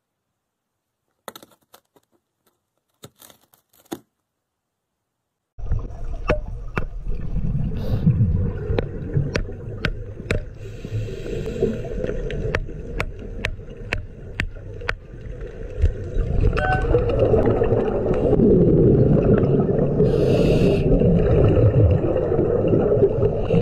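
A few faint scratches, then an underwater recording: a hammer tapping on rock just under twice a second over a steady low rumble and gurgle of water and bubbles. The taps stop about two thirds of the way through and the bubbling grows louder.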